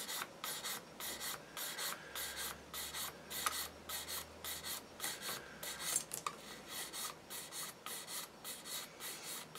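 Coarse sanding stick rubbing on a plastic model car body shell in quick back-and-forth strokes, about three a second, taking a slight moulding lip off the back edge of the boot.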